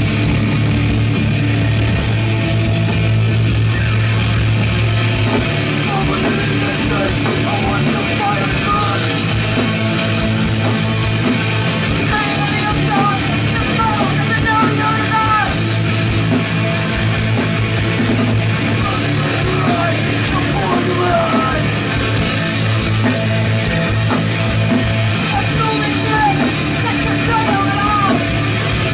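Live heavy metal band playing loud, heard from the crowd: distorted electric guitars and drums, with a woman singing into a microphone.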